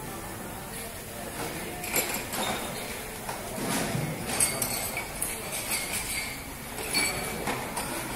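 Drinking glasses clinking against one another and against plastic glass racks as they are packed away, in a string of irregular sharp clinks.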